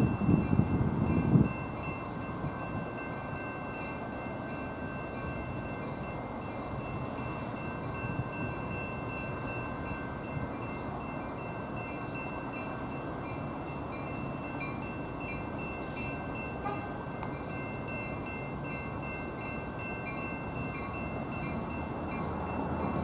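Railroad grade-crossing bells ringing steadily and repeatedly while the gates are down. A louder low rush fills the first second and a half.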